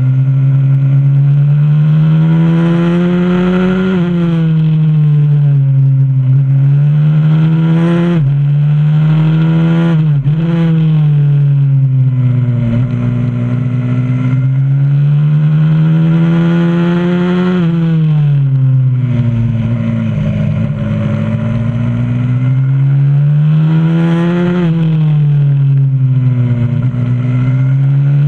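Single-cylinder four-stroke engine of a 125cc supermoto pit bike at full throttle on track, heard from a camera mounted on the bike. The revs climb for a few seconds and then drop sharply, several times over, as the bike accelerates down each straight and brakes into the next corner.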